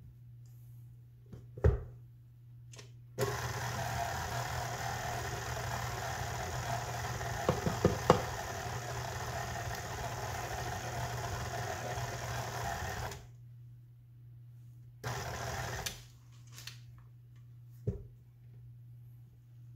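KitchenAid Classic stand mixer running for about ten seconds with its flat beater working through stiff oatmeal raisin cookie dough, with a few knocks near the middle. It runs again briefly, for about a second, a couple of seconds later. A single sharp knock comes shortly before the first run and another near the end.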